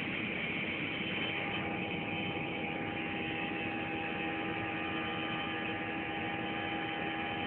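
Steady airliner cabin noise during the climb after takeoff: engine and airflow noise heard from inside the cabin, with a steady hum held on a couple of tones.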